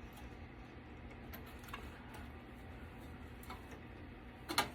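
Faint, scattered clicks and light taps of a desktop computer's parts being handled, with a sharper click near the end, over a low steady hum.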